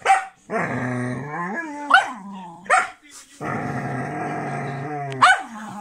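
A dog growling in two long, low, steady growls, broken by about four short, sharp barks.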